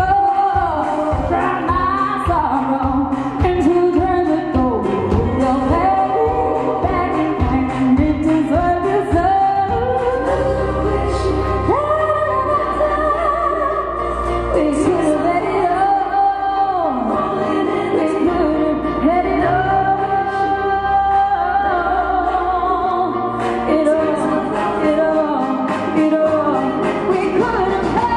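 A female pop singer sings live into a handheld microphone over instrumental accompaniment, gliding between and holding long melodic notes. A steady beat runs through the first third, then a fuller held bass comes in.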